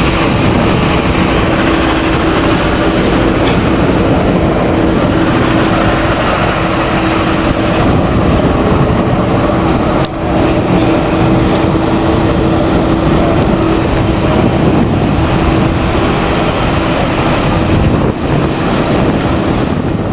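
Propeller airliner's engine running at a steady idle: a loud, even rumble with a constant hum, dipping briefly about halfway through and again near the end.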